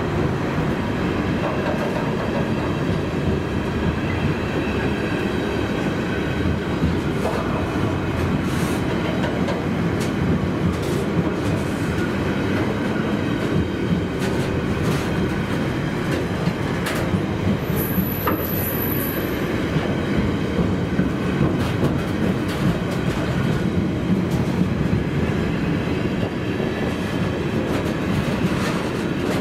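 Loaded intermodal container wagons of a freight train rolling steadily past at close range, a continuous rumble with the irregular clatter of wheels over rail joints. A brief high squeal a little past halfway.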